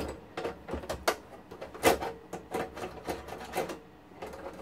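Irregular metallic clicks and scrapes from hand tools and parts being worked on an HP 5328A frequency counter's metal chassis during disassembly. The loudest click comes about two seconds in, and the clicks thin out near the end.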